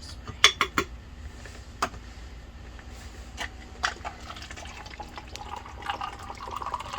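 Several sharp clinks, like ice and glass, then a mixed cocktail poured into a glass from about five seconds in.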